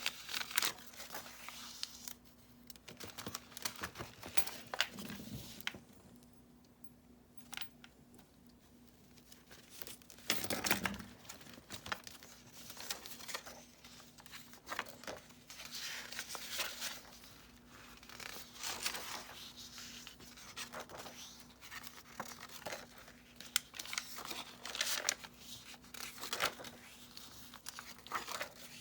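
Paper pages of a handmade junk journal (book pages, coffee-dyed paper and mixed sheets) being turned and handled: repeated crisp rustling and crinkling, with a short lull and one duller, heavier stroke about a third of the way in.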